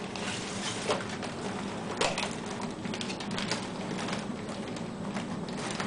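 Dog food bag crinkling and rustling in irregular bursts as a dog works her head inside it, licking and nosing for a leftover kibble; the sharpest crackles come about one and two seconds in.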